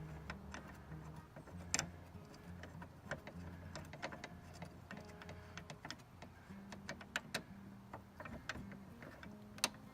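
Light, scattered clicks and taps of metal screws and a bracket being handled at a Jeep door hinge, with a sharper click less than two seconds in and another near the end.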